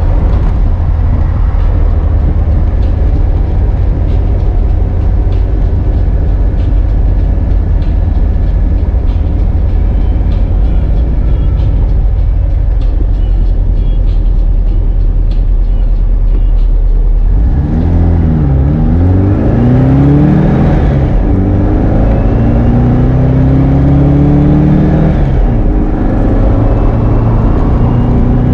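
1965 Volkswagen Beetle's 1776cc air-cooled flat-four, fitted with velocity stacks and an A1 exhaust, running under way. It holds a steady low drone at first. About two-thirds of the way in, the revs swing up and down and then climb, dropping briefly at a gear change before climbing again.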